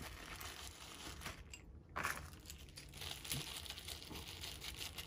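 Small clear plastic bag crinkling and rustling as it is handled, in irregular soft crackles with a brief pause about a second and a half in.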